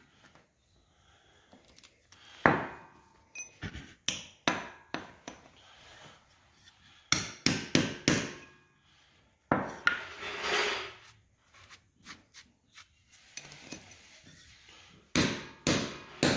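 Hammer striking a steel setting rod to drive concrete anchors into holes drilled in a concrete floor: sharp metallic blows in bursts of a few strikes, with pauses between.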